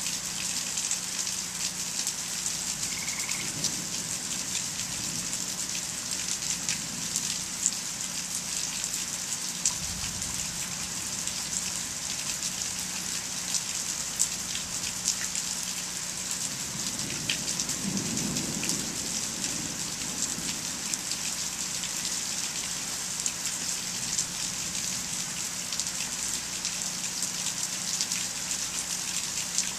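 Steady rain falling, a constant hiss with many small drops ticking close by. A faint low rumble of distant thunder swells and fades a little past halfway.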